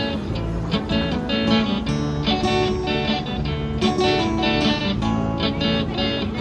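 Background music of strummed guitar chords in a steady rhythm.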